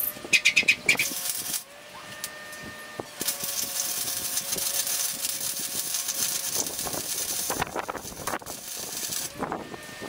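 Electric arc welding on steel square tubing: a few short crackling bursts of arc in the first second, then a steady arc hiss and crackle for about four seconds that stops.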